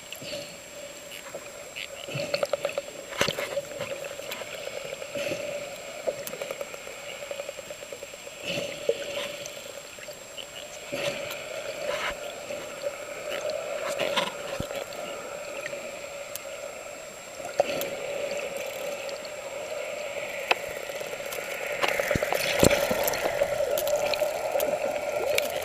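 Underwater sound: a steady hum with water noise and many scattered sharp clicks.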